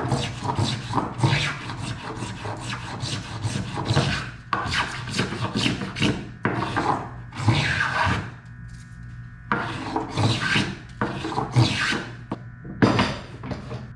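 Spokeshave cutting shavings from the curved edge of pine boards in a series of short, rasping strokes, with a pause of about a second just past the middle. The two side pieces are being faired together to a matching curve.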